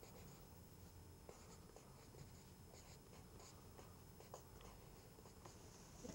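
Faint scratching of a pencil on paper as block capital letters are written, a run of short separate strokes.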